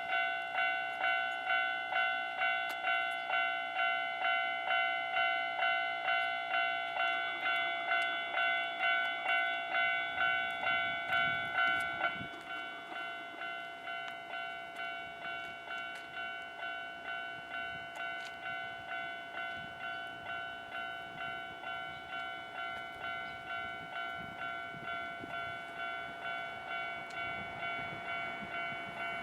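Electronic warning bell of a Japanese railway level crossing ringing in an even ding-ding rhythm, about one and a half strikes a second. About twelve seconds in it becomes noticeably quieter and keeps ringing.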